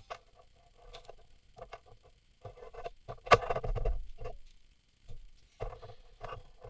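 Irregular clicks and rustling from parts being handled during hand repair work, with one sharp, louder click a little after three seconds and a brief rustle after it.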